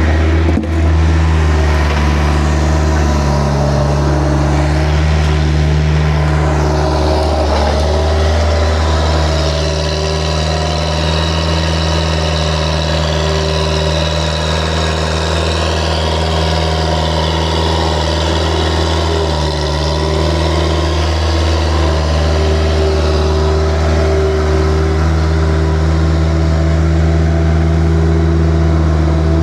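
A vehicle engine running steadily and loudly, its pitch shifting a little now and then.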